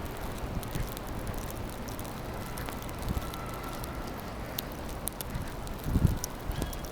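Wind buffeting the microphone in a snowstorm: a steady low rumble, with stronger gusts about six seconds in.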